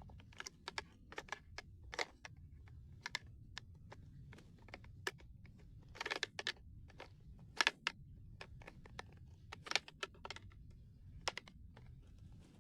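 Irregular plastic clicks and taps as a pencil is poked and prodded into a jammed X-Shot toy foam-dart blaster to clear the jam.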